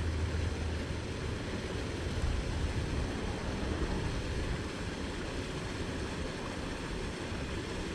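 Steady, low, rumbling wind noise buffeting the microphone outdoors.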